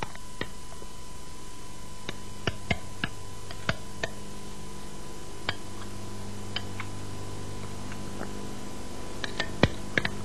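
Scattered light clicks and knocks of a utensil and a glass bowl against a metal sauce boat as thick aioli is scraped out. The loudest knocks come near the end, over a steady hum.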